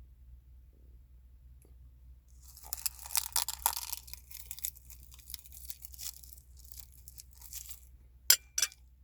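Close-up eating sounds: a dense burst of crunching for about a second and a half a couple of seconds in, then scattered chewing and crunching. Near the end, two sharp clicks, the loudest sounds.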